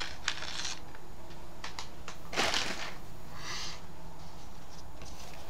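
Rustling and crinkling of a motherboard's anti-static bag and cardboard box being handled, with a louder swish a little before halfway and a shorter rustle just after.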